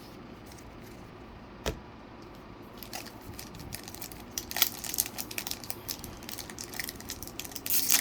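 A foil booster-pack wrapper crinkling and being torn open, a dense run of crackles starting about three seconds in, after a single click.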